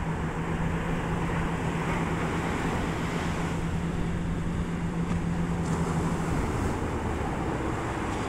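A fishing boat's engine running with a steady hum over the rush of breaking surf and wind; the engine note stops about six seconds in.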